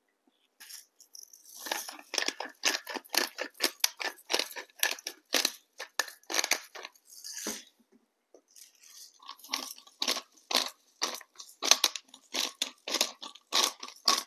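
Hand-twisted spice grinder grinding seasoning, a quick run of gritty crunching clicks. It stops for about a second halfway through, then the grinding starts again.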